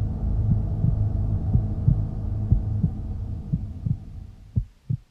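Sound-designed heartbeat effect: paired low thumps over a low hum, fading out near the end and finishing on a few separate beats.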